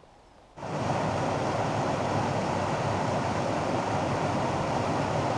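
A small woodland waterfall, white water pouring over rocks into a pool with a steady rushing sound. It starts suddenly about half a second in, after a moment of quiet.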